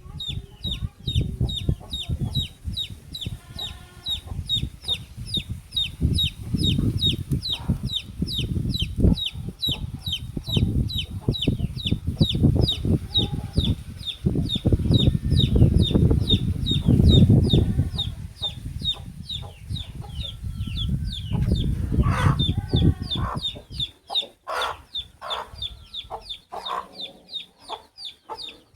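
Baby chick peeping steadily, short high falling cheeps about three a second, over heavy low rumbling noise that drops away near the end, leaving a few knocks.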